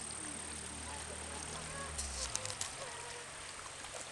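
Outdoor ambience: wind rumbling on the microphone until about two seconds in, with faint, scattered bird calls and a few sharp clicks around the point where the rumble drops away.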